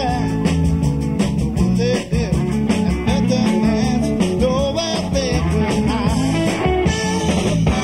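Live rock band playing: electric guitars with a bending lead line over bass, drums and organ.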